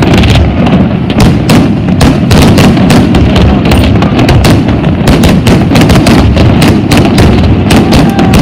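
Fireworks display going off close by: a loud, unbroken barrage of aerial shell bangs and crackling bursts, many reports a second over a constant low rumble.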